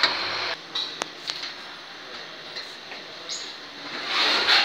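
A steady hiss that cuts off about half a second in, then workshop handling noises: a few light clicks and knocks, and a brief scraping rustle near the end as a gloved hand works at the door of a heating oven.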